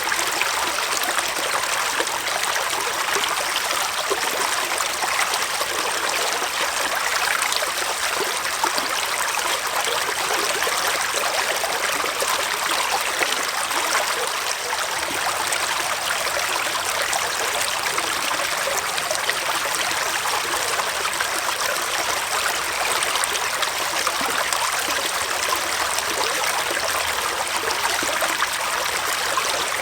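Small forest stream flowing and trickling steadily over stones, a constant even rush of water.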